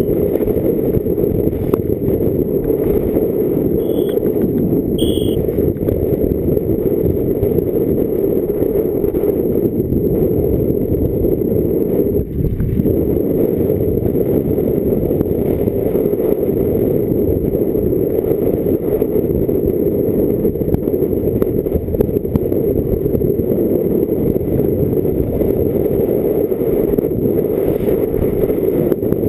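Downhill mountain bike racing over a rough dirt and rock trail: a steady, muffled rush of wind and tyre and frame rumble picked up by a GoPro on the rider. Two short high squeaks come about four and five seconds in.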